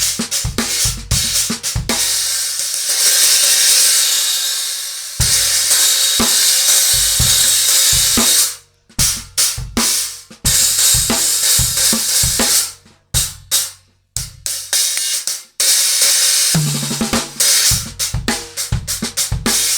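Acoustic drum kit being played: fast kick, snare and hi-hat strokes with sustained crash-cymbal wash, stopping abruptly several times.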